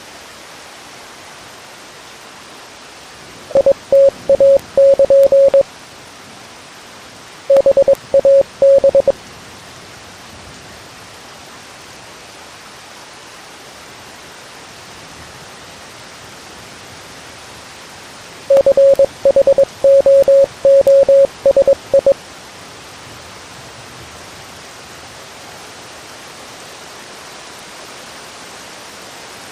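Morse code beeps, a single steady tone keyed in short and long elements, in three groups over a steady hiss of radio static.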